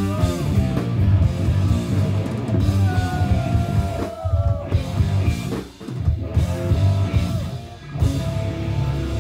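Live rock band playing hard: electric guitar lead with sliding string bends over bass, drum kit and keyboards, the groove breaking off briefly a few times. Near the end the band lands on a held chord that rings on.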